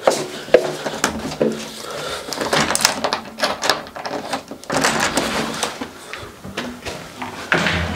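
Front door being unlocked and opened, with repeated clicks and rattles from the lock and handle.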